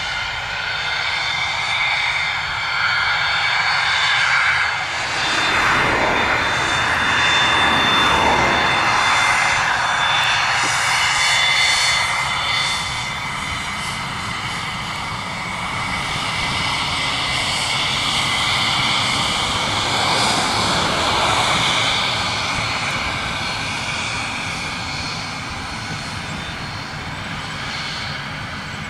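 Cessna 551 Citation's twin turbofan jet engines whining steadily as the jet taxis past, loudest from about five to twelve seconds in, then slowly fading as it moves away.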